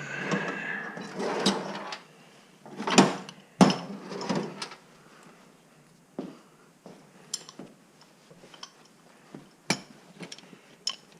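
Tools being rummaged for and handled, likely a pipe wrench being fetched: a scraping, sliding noise at the start, two sharp clanks about three and three and a half seconds in, then scattered light clicks and knocks.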